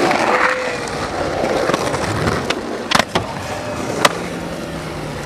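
Skateboard wheels rolling over pavement, with sharp board clacks: two close together about three seconds in and another a second later.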